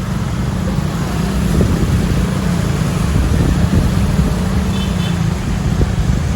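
Roadside traffic: the steady low rumble of heavy vehicles' engines and tyres passing close by, with a brief high-pitched triple chirp just under five seconds in.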